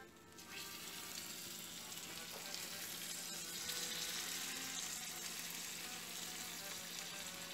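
Boiling water poured from a measuring jug over hot, freshly baked chicken pastry rolls in an enamel pan, sizzling steadily as it hits the hot pastry and pan. The sizzle starts about half a second in.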